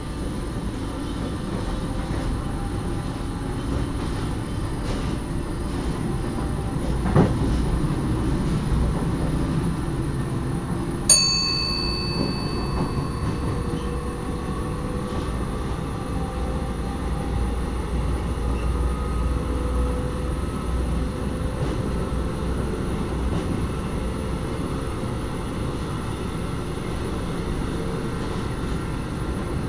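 Steady rumble and rolling noise of a train running on rails, heard from on board while a container freight train runs close alongside. There is a sharp click about seven seconds in and a brief ringing ding about eleven seconds in, with faint rising tones under the rumble later on.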